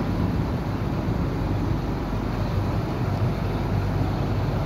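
Caterpillar 320D excavator's diesel engine running at a steady idle.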